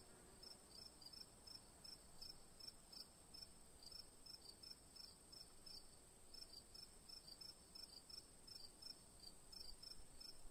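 Crickets chirping faintly: short chirps repeating a few times a second over a steady high trill.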